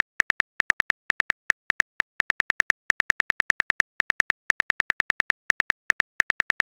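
Phone keyboard key-click sound effect: a quick, uneven run of short identical taps, about seven a second with a few brief pauses, as a text message is typed out and partly deleted.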